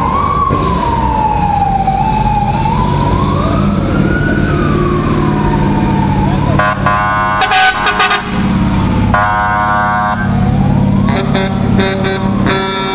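A wailing vehicle siren sweeping slowly up and down, over the low engine rumble of passing vehicles. It is broken by short horn blasts in the middle and again near the end.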